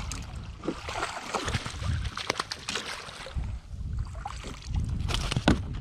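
Water splashing and dripping as a landing net scoops a flounder out beside a kayak, with scattered knocks of the net and fish against the hull, the loudest near the end.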